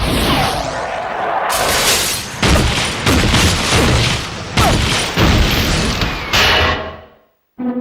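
A rapid run of loud booming bangs and crashes, cartoon sound effects, one hard hit after another. They die away to silence near the end.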